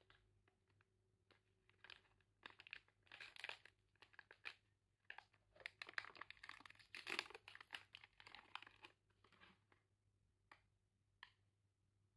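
Plastic wrapper of a Fitbar snack bar being crinkled and torn open by hand: irregular crackling and rustling, busiest in the middle, then a couple of single crackles near the end.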